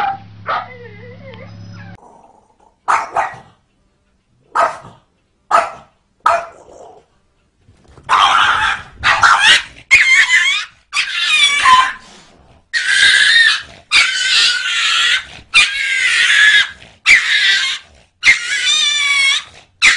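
A dog barking: four short single barks, then a run of long, loud, wavering cries about once a second.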